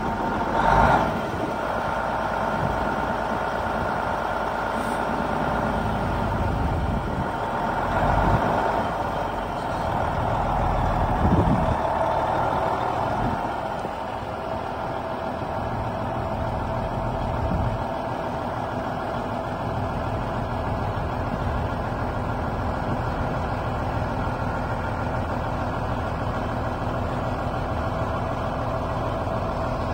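Heavy grain truck's diesel engine running steadily while the raised grain box is let down on its hoist. There are louder swells about a second in and again around eight and eleven seconds.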